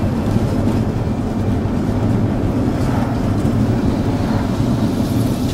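Steady road noise inside a moving vehicle's cabin: a constant low engine and tyre hum with wind rushing over the body.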